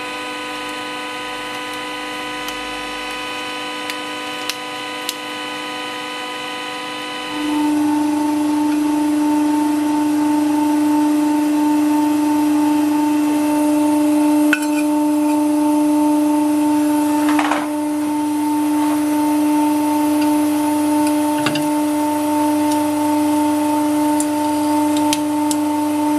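Hydraulic press pump motor running with a steady whining hum. About seven seconds in its tone changes and it gets louder, with a few faint clicks and creaks over it.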